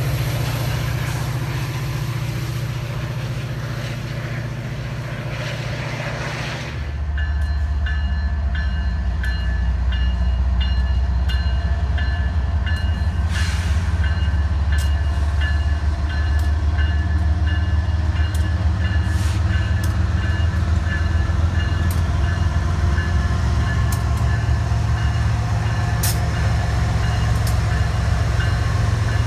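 Metra EMD F40PH diesel locomotive pulling its commuter train away, its engine drone slowly fading. About seven seconds in, a BNSF freight train's lead diesel locomotives roll close past with a deep, steady rumble, scattered wheel clicks and a high ringing tone that pulses evenly.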